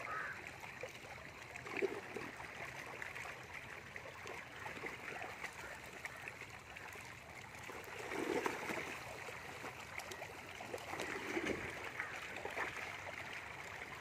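A packed mass of catfish gulping and thrashing at the water's surface: continuous splashing and gurgling, with a few louder sloshes now and then.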